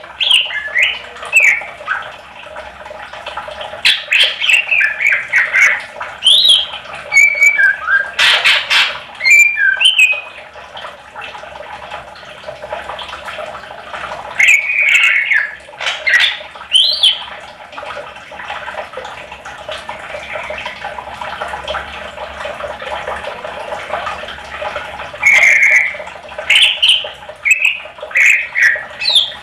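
Caged green leafbird (cucak ijo) singing in bouts of quick, varied chirps and short whistled notes, with pauses of several seconds between bouts.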